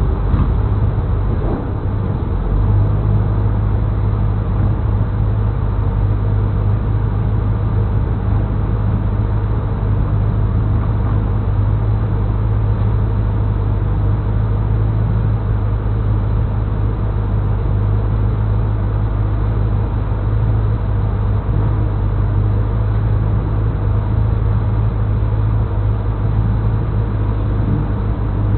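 A car engine idling steadily, heard from inside the parked car's cabin as an even low hum.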